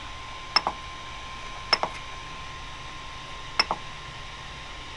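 Rotary push-knob on a Creality Ender 3 V2 3D printer's control display, pressed three times to select menu items; each press is a quick double click, the presses a second or two apart.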